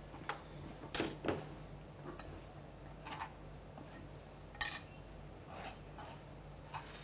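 Mashed potato and bread crumbs being mixed by hand in a nonstick pan: soft rubbing with about half a dozen scattered light knocks and clinks against the pan, over a faint steady low hum.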